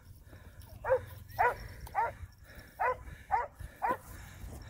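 A dog barking, six short barks about half a second apart with one slightly longer gap midway.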